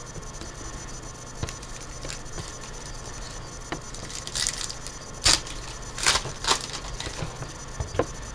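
Trading cards being handled by hand on a wooden table: cards sliding and rubbing against each other and being set down, with scattered light clicks and a few short rustles. The sharpest tap is about five seconds in.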